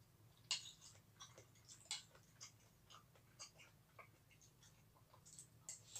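Quiet eating sounds: a scatter of small clicks and ticks from a metal spoon in a ceramic bowl and from chewing, two sharper clicks about half a second and two seconds in.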